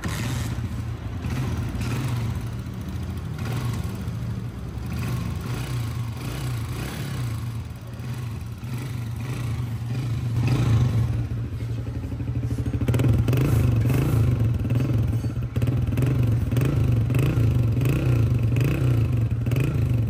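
Honda CG 125 single-cylinder four-stroke engine running steadily after a top overhaul with new piston rings and head work. It gets louder about two-thirds of the way through.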